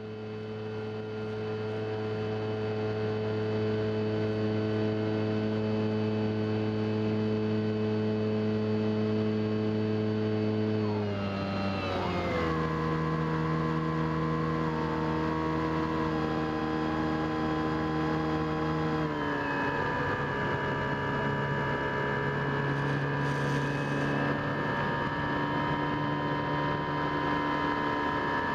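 Electric RC plane in flight, heard from its cockpit: the HeadsUpRC 4248-800 brushless motor and 13x6.5 APC propeller give a steady whine. The pitch steps down twice, a little under halfway and again about two-thirds through, as the throttle is eased back.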